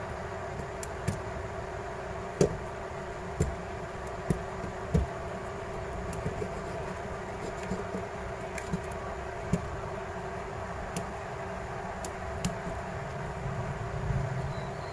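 Small tools clicking and tapping against a phone's frame while it is cleaned for a new display, a dozen or so sharp clicks at irregular intervals, the loudest a few seconds in. A steady background hum runs underneath.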